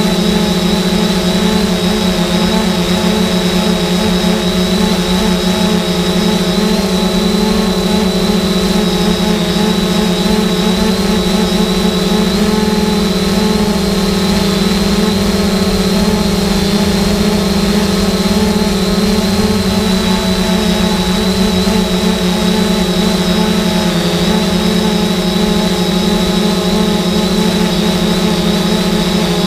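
3DR Solo quadcopter's four electric motors and propellers humming steadily in flight, heard from on board the drone: a constant low drone with a thin high whine above it.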